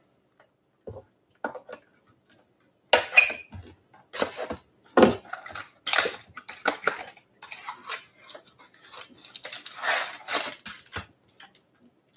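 Cardboard trading-card mini box being handled and torn open and its foil-wrapped card packs pulled out: a run of short scrapes, tears and crinkles starting about three seconds in, with a longer crinkling stretch near the end.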